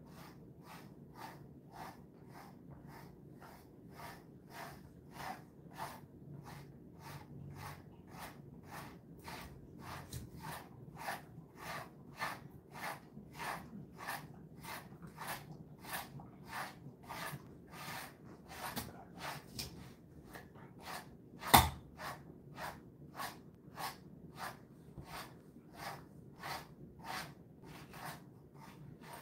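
Grooming brush drawn repeatedly through a Jindo dog's coat, soft brushing strokes at about two a second. One sharp click about two-thirds of the way through.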